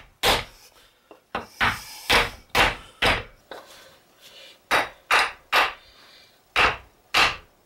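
Hammer blows on a wood block held against a steel ball joint press tool, driving a new lower front ball joint home in a 2008 Dodge Avenger. About a dozen sharp strikes, roughly half a second apart, come in three quick runs with short pauses between.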